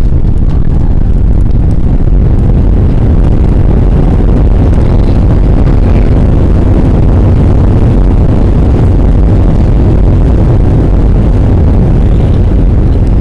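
Loud, steady low rumble of an Airbus A320 heard from inside the cabin during landing.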